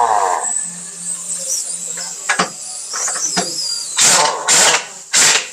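Pneumatic impact wrench hammering on a truck's wheel nuts in short bursts: one ends just after the start, and three more come about half a second apart near the end. A steady air hiss and a few clicks and knocks run between them.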